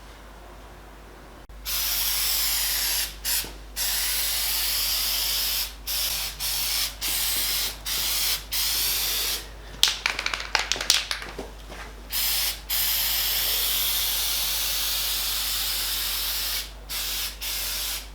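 Aerosol can of Dupli-Color bed-armour coating spraying in repeated hissing bursts of one to several seconds with short breaks, starting about a second and a half in. Around the middle the nozzle sputters and crackles, spitting unevenly, before a long steady burst.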